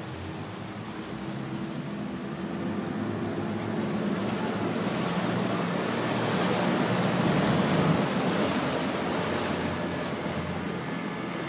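Speedboat under way: a steady engine drone mixed with rushing water and wind on the microphone, swelling louder about two-thirds of the way through, then easing.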